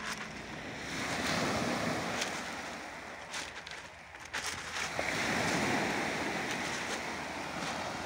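Small sea waves washing up over a pebble beach: two surges of surf, each rising and then fading, about four seconds apart.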